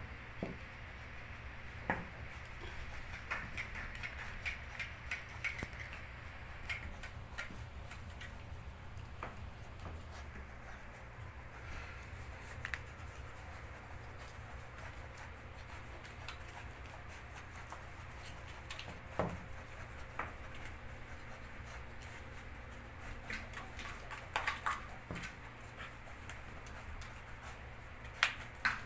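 Belgian shepherd puppies' claws and paws clicking and pattering on a tiled floor as they walk and play, with scattered light taps and a few louder knocks, over a steady low hum.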